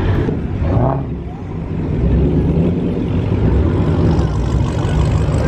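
Muscle-car engines and exhausts rumbling low and steady as cars crawl in a line, heard from inside a car. The rumble dips briefly and swells again about two seconds in.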